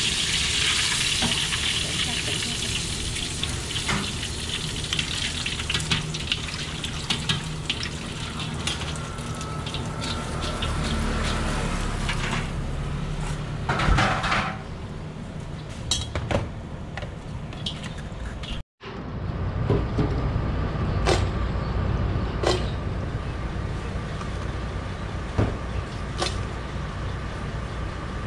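Battered mahi mahi strips deep-frying in a wok of hot oil, a dense sizzle that fades away over the first dozen seconds as the pieces are lifted out with a metal skimmer, with a clatter of metal about 14 seconds in. After a sudden cut, a steady low hum with scattered light metal clicks.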